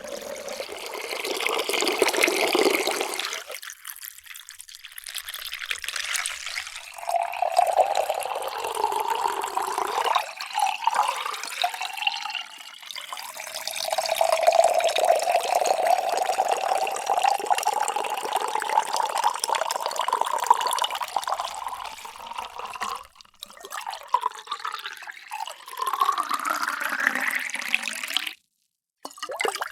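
Water being poured into drinking vessels in several separate pours, splashing with a pitched ringing that climbs as each vessel fills. One pour near the end rises steeply in pitch and stops abruptly, followed by a brief silence before the next pour begins.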